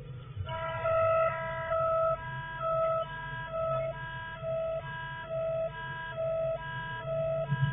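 Two-tone warning siren alternating between a low and a high note, each held about half a second, starting about half a second in, over a low steady hum.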